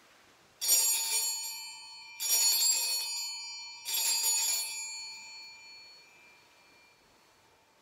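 Altar bells (sanctus bells) rung three times, each ring a shaken jangle that dies away, marking the elevation of the chalice after the consecration at Mass.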